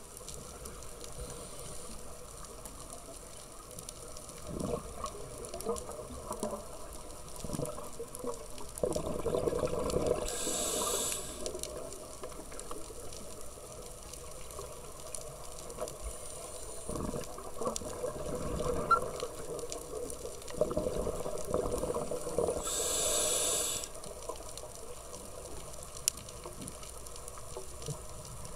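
Scuba regulator breathing heard through an underwater camera: a sharp hiss of inhalation twice, about twelve seconds apart, with rushing, gurgling exhaled bubbles in between.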